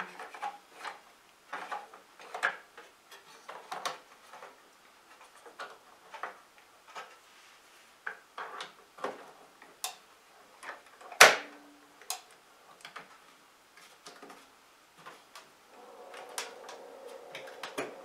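Scattered plastic clicks and knocks from a microwave's door-release button and latch being worked by hand, with one sharper knock about eleven seconds in. The door will not open because a latch part has worked out of place, which the owner puts down to wear.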